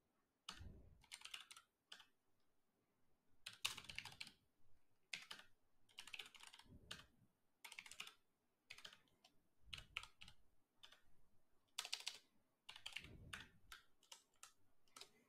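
Computer keyboard typing, quiet, in short irregular bursts of keystrokes with brief pauses between them.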